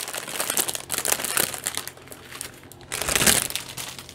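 Clear plastic bags crinkling as small zip-lock bags of diamond painting drills are shaken out of an outer plastic bag and spread across a table. The rustling is busiest for the first two seconds, pauses, and comes back in a short burst just after three seconds.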